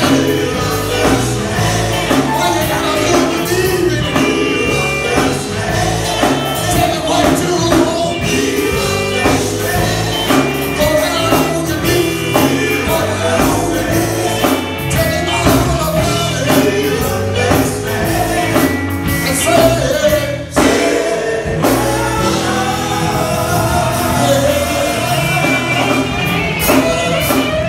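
Live gospel quartet performance: several men singing into microphones, backed by a band with drums and electric guitar.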